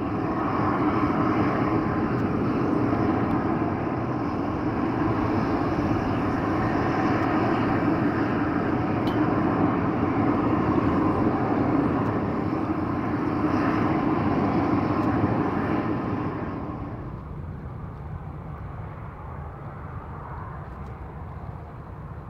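Jet aircraft engine noise at an airport: a loud, steady rush. It fades to a quieter low rumble about seventeen seconds in.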